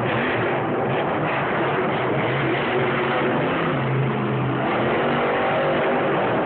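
Monster truck engine (Son-Uva Digger) running hard and revving, loud and continuous, with a held low note about midway through.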